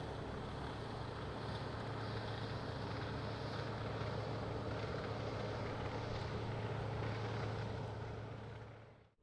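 Jungheinrich TFG 425s forklift's LPG engine running steadily with a low hum as the duplex mast lowers the forks. The sound fades out in the last second.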